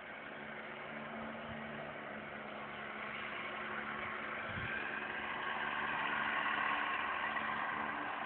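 Heavy construction machinery running at a building site: a steady engine drone with a low hum, growing louder through the middle and easing slightly near the end.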